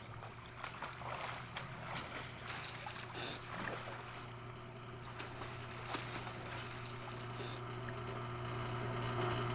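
Water splashing and churning as a person thrashes in it, with scattered sharp splashes, over a steady low hum that grows louder near the end.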